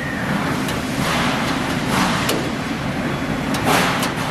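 Steel locking rod clinking and scraping against the sheet-metal cabinet as it is wiggled into place in the lock mechanism, a series of short metallic clicks and scrapes. A steady low rumble of background machinery runs underneath.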